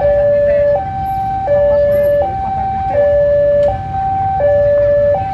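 Railway level-crossing warning alarm sounding a steady electronic two-tone pattern, a higher and a lower tone alternating about every three-quarters of a second, over the low rumble of a diesel locomotive moving slowly.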